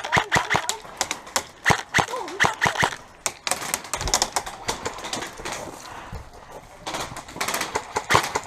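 Airsoft guns firing bursts of rapid clicking shots. There are several bursts, a second or so each, with short pauses between them.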